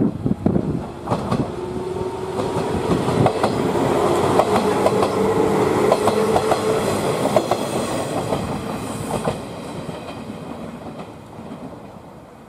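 Three-car 115 series 1000-番台 electric multiple unit passing close by, its wheels clicking over rail joints with a steady humming tone underneath. The sound fades in the last few seconds as the train moves away.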